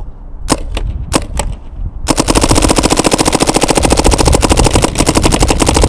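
Dye M3s spool-valve paintball marker on compressed air firing: a few single shots in the first second and a half, then a fast continuous string of shots from about two seconds in. Its air tank is running low, roughly 500 psi by the gauge.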